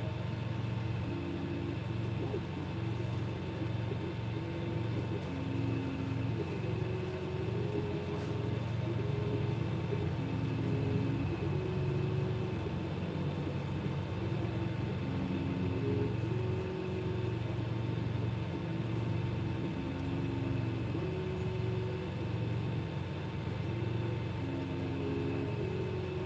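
Creality 3D printer laying down a first layer: its stepper motors whine in short held tones that jump to a new pitch with each move of the print head, over the steady hum of its fans.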